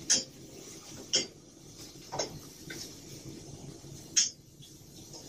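Metal tongs clinking against a stainless steel sauté pan as mushrooms and garlic are stirred: about five sharp clinks spaced roughly a second apart, the loudest about four seconds in.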